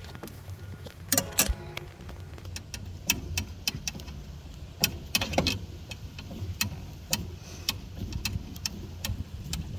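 Metal hand tools clicking and clinking in irregular bunches as a screwdriver is found and worked on a boat cup holder's mounting screw, over a steady low rumble.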